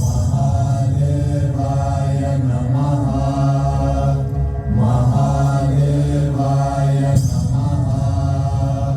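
Mantra chanting in repeated phrases over a steady low drone.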